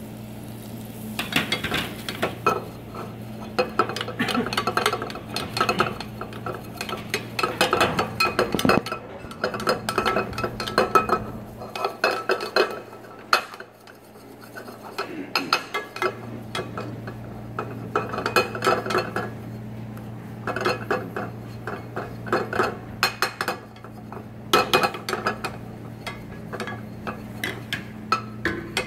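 Metal spoon stirring and scraping sliced mushrooms as they are sautéed in a pan, clinking against the pan in irregular runs, over a steady low hum. The stirring thins out for a few seconds about halfway through.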